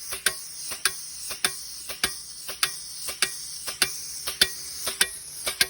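Gas-engine air compressor running with a faint steady hum, under sharp, evenly spaced clicks, roughly three every two seconds.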